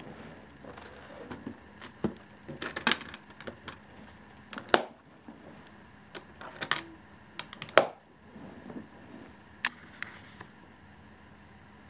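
An aluminium carrying case being shut: its lid knocks closed and its metal latches snap shut, heard as a series of separate knocks and sharp clicks, the loudest about two-thirds of the way through.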